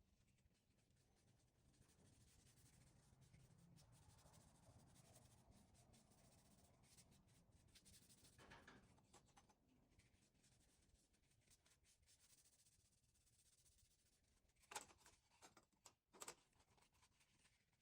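Near silence, with faint handling noise and a few light clicks near the end.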